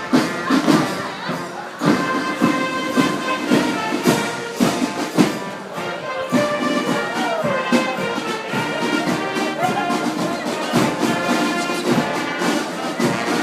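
Orchestral music with brass, cut through by frequent sharp thumps.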